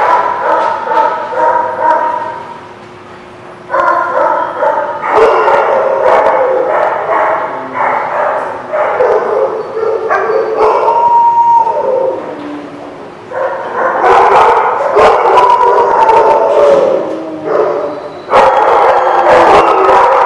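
A group of dogs barking, howling and yipping at play. The calls overlap almost continuously, dropping off briefly about three seconds in and again around twelve seconds.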